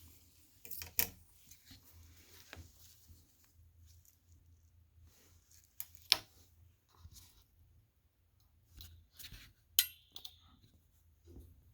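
Sporadic light clicks and small knocks of a watch and measuring tool being handled on a desk, with two sharper clicks about six and ten seconds in.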